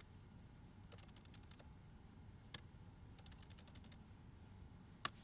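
Quiet typing on a laptop keyboard: two short bursts of key taps with a single tap between them, and a sharper tap about five seconds in.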